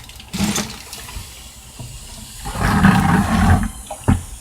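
Liquid pouring and sloshing into a bucket, with a louder gush about two and a half seconds in and a sharp knock near the end.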